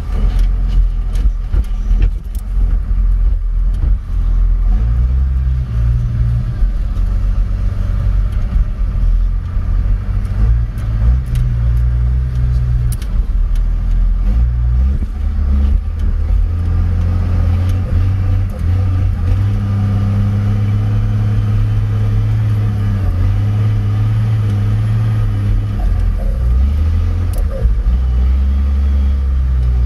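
Front-end loader's diesel engine working under load, heard from inside the cab, its note rising and falling several times as the machine moves and lifts. Gravel clatters out of the bucket in the first few seconds.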